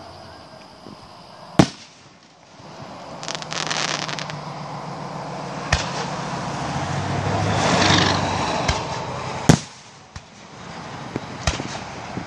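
Fireworks going off: several sharp bangs a few seconds apart with a patch of crackling. Under them a rushing sound builds for several seconds and stops with a bang.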